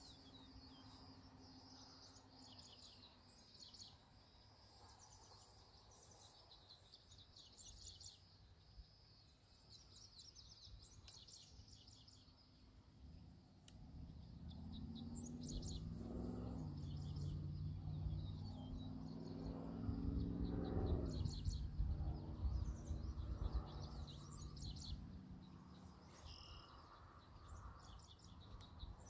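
Birds chirping on and off. About halfway through, a low drone swells up and fades again, its pitch falling as it passes: plausibly the twin electric motors and propellers of an RC plane flying by.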